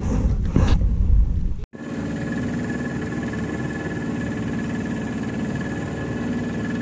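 Wind buffeting the microphone at first, then after a sudden cut a small boat's outboard motor running steadily, with a thin high whine over the engine's hum.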